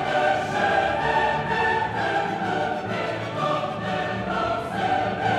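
Choral music: a choir of many voices holding long sung notes.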